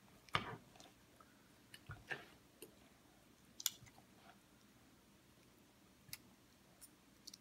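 A scattering of faint clicks and taps from a toddler eating: a plastic spoon and small fingers working noodles in a plastic bowl on a high-chair tray, with soft chewing.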